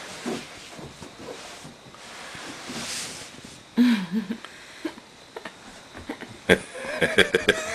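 Toddler at play: a faint hiss, then a short wavering voice sound about four seconds in. A sharp knock comes later, and quick, pulsing laughter starts near the end.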